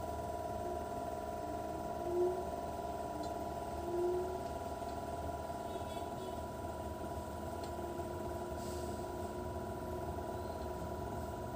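A steady machine hum made of several fixed tones, with two short squeaks about two and four seconds in.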